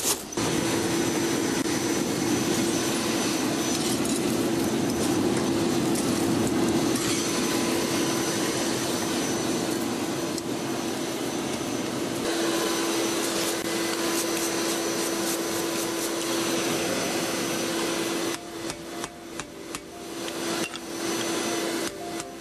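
Air blower on a coal-fired brake drum forge running steadily with a constant hum, driving air into the fire to bring the iron up to heat. It cuts off about eighteen seconds in, leaving light clicks and clinks.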